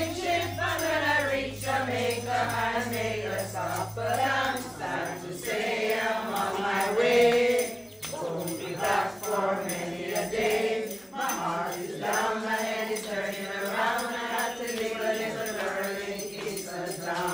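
A group of voices singing a song together, with a jingling tambourine-like percussion shaken along.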